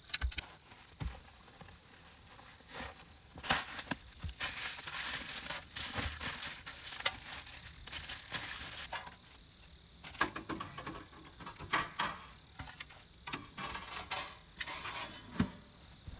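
Bubble wrap crinkling and rustling as a toaster-oven plate is unwrapped and handled, with scattered sharp clicks and knocks in two long stretches of handling.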